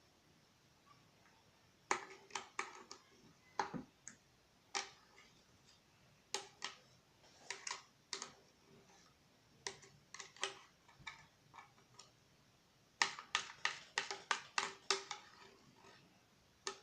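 Slime being squeezed and kneaded by hand, giving clusters of sharp little clicks and pops with pauses of a second or two between them.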